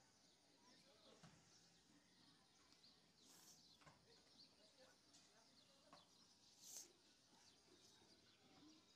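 Near silence: faint room tone with scattered faint high chirps and two soft, brief hisses, one about a third of the way in and a louder one about three quarters in.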